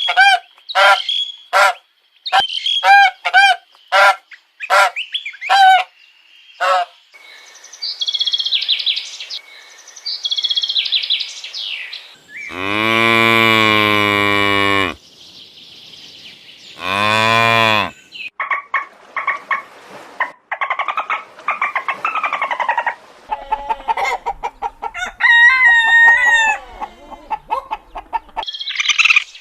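A run of farm animal calls: short repeated calls in the first few seconds, then two long low cow moos near the middle, the first lasting about two seconds, followed by more fowl and bird calls.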